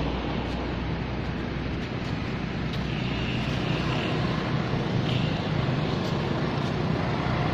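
Steady rushing wind noise on the microphone, with two faint short high squeaks about three and five seconds in.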